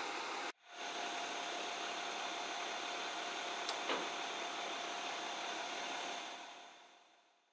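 Steady drone of an idling engine with a constant high whine, cut off for a moment about half a second in. Near the middle come a single click and a quick falling whistle, and the sound fades out over the last second or so.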